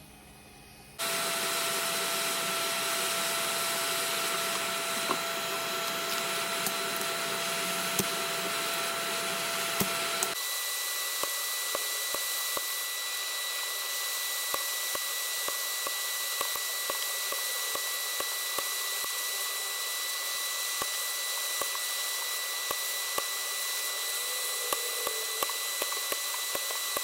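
Atten ST-862D hot air rework station's handpiece blowing hot air, a steady rushing of air with a thin fan whine, starting about a second in. About ten seconds in the whine steps up to a higher pitch and the deepest part of the sound drops away; faint ticks are scattered through it.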